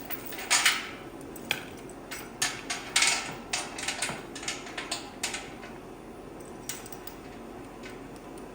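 Irregular metal clanks and rattles of a lifting chain and hook being rigged to a tractor engine for a cherry-picker lift, a quick run of strikes in the first five seconds and one more near seven seconds.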